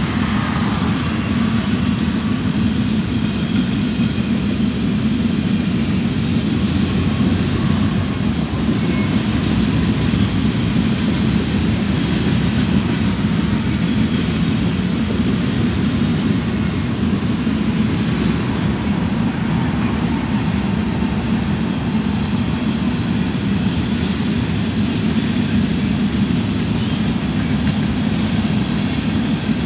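Freight train of covered grain hopper cars rolling past, a steady, continuous noise of wheels on rails, with road traffic passing in front.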